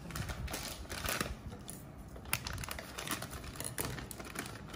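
Irregular light clicks and rustles from small handling noises while food is being prepared.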